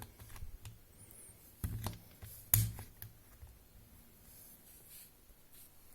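Faint handling noise of test probes being moved: a few soft knocks and rustles, the loudest about two and a half seconds in.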